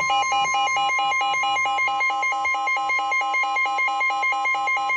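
NOAA Weather Radio's 1050 Hz warning alarm tone, a steady high-pitched tone that signals a warning message is about to be read. Over it is a rapid two-pitch beeping alarm, about six beeps a second.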